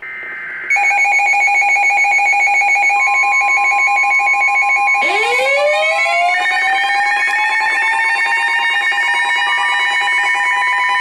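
Emergency-alert sounds: a rapidly pulsing electronic alarm tone starts about a second in, a steady single tone joins it for a few seconds, and about halfway through a siren winds up from a low pitch and holds high alongside the alarm.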